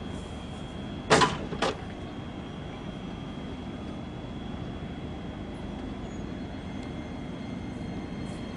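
Streetcar standing at the stop with a steady hum, broken about a second in by two short, sharp hisses of air, the first longer than the second.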